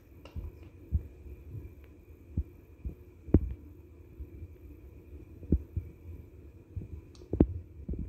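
Irregular soft low thumps, with two sharper knocks about three and a half and seven and a half seconds in, over a faint steady high hum.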